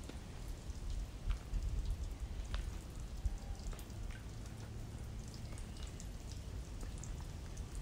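Outdoor ambience: a steady low rumble with many scattered light ticks and crackles, and a few faint brief tones.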